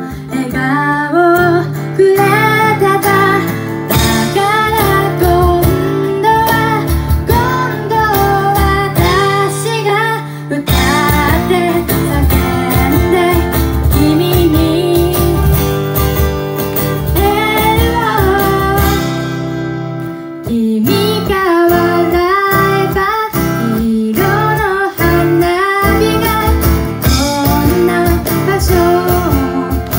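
Live acoustic song: a woman singing over a strummed acoustic guitar, with hand-percussion beats, which are most prominent in the second half.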